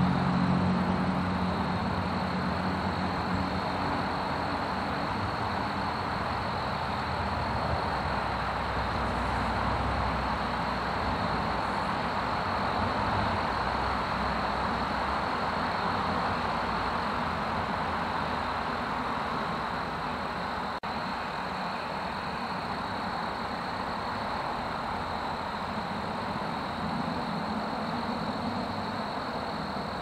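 Distant road traffic, a steady wash of noise that swells and ebbs slowly, with one vehicle's low engine hum fading away in the first few seconds. A steady high thin tone sits above it.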